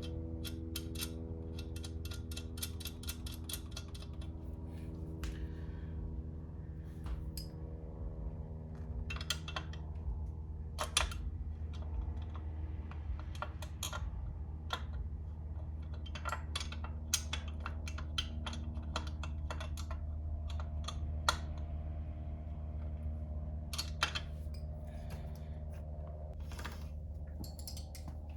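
Hand wrench clicking and clinking on the chain-adjuster bolt of a Kayo K2 230 dirt bike as it is tightened. A fast run of clicks comes in the first few seconds, then scattered single clicks, over a steady low hum.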